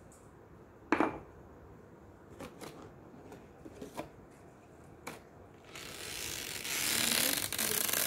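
Handling a wicker gift basket and its cardboard packaging: a sharp knock about a second in, then a few light clicks and taps. From about six seconds in comes a long, loud rustling and scraping as the basket's lid is opened.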